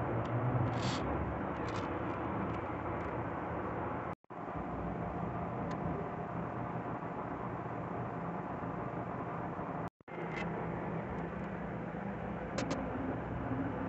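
Steady background rumble and hiss with a few faint clicks and scrapes; the sound drops out briefly twice.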